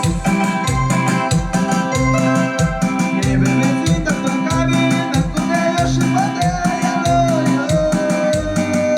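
Live band playing an instrumental Mixtec dance tune, an electronic keyboard melody over a steady bass beat of about two a second.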